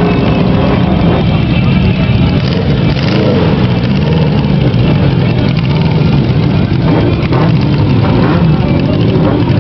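A custom motorcycle's air-cooled four-cylinder engine running loud through a short exhaust, its revs swelling and easing a few times.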